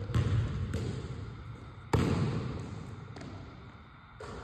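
Basketball bouncing on a hardwood gym floor: several separate bounces, the loudest about two seconds in, each echoing in the large gym.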